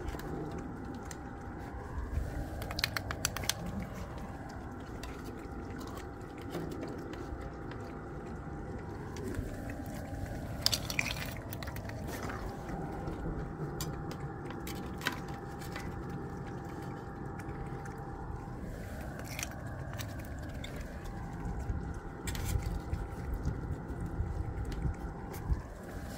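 Several cats chewing and smacking as they eat food off the ground, making many small wet clicks.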